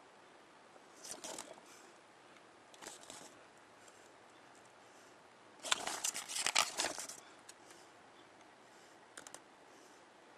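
Pages of a paper instruction booklet being turned by hand. Brief rustles come about a second and about three seconds in, a longer and louder flurry of page-turning follows past the middle, and a short rustle comes near the end.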